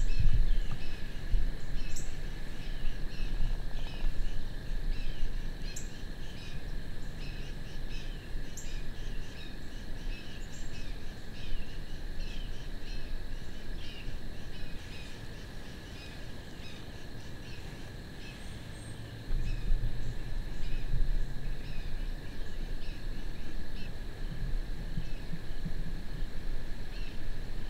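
Outdoor field ambience: a steady insect drone at two high pitches, scattered short bird chirps, and a low wind rumble on the microphone that grows louder about two-thirds of the way through.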